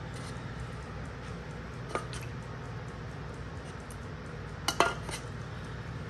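Light glassy clinks of a small glass bowl knocked against a wooden cutting board: one about two seconds in, then a quick cluster of three or four near the end, over a steady low room hum.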